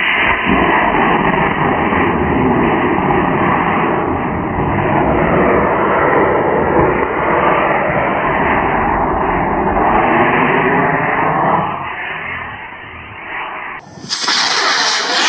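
Model rocket motor firing: a loud, steady rushing hiss of exhaust, dull and muffled, fading after about twelve seconds. About a second before the end a brighter, sharper rush of motor exhaust starts.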